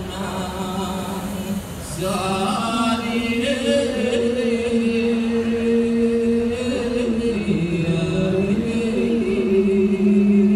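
A man's unaccompanied voice chanting a Sasak pepaosan text, the sung reading of a lontar manuscript, in long held melodic notes that glide slowly from pitch to pitch.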